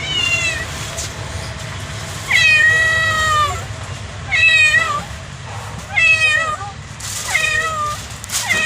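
Domestic cat meowing repeatedly, about six meows with short gaps between them. The longest, drawn-out meow comes a little over two seconds in.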